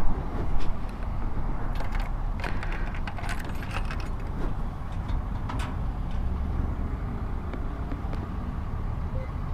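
Light clicks and rattles of small hard objects, between about two and six seconds in, over a steady low rumble.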